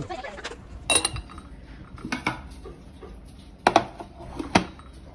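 Tableware being handled on a lacquered tray: lids set on lacquered bowls and dishes knocked together, making four separate clinks and knocks. The first, about a second in, rings briefly; the loudest two come near the end.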